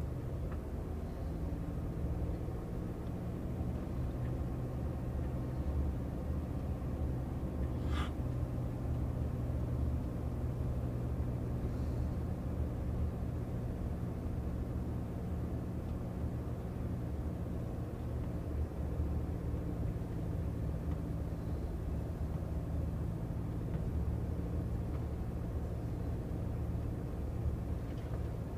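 Steady low engine hum and road noise heard inside a slowly moving vehicle's cab, with one short sharp click about eight seconds in.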